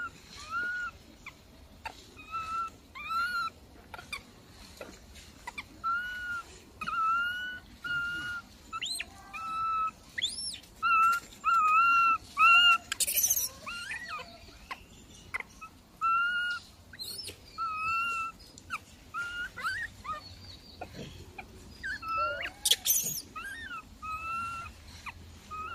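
Infant macaque crying in a long series of short, high whimpering calls, about one a second, each held on one pitch, with a few sharper rising squeals among them. The baby is protesting at being weaned by its mother.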